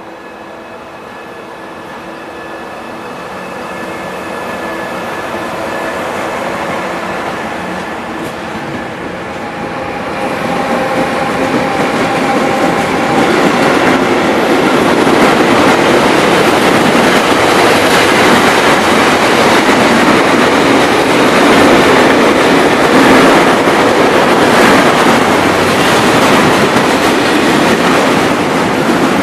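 Italian E.401 electric locomotive and its passenger coaches rolling past at low speed. The locomotive's drive hums with several steady tones as it draws near, then the coaches' wheels on the rails take over, growing louder, with a rhythmic clickety-clack over the rail joints.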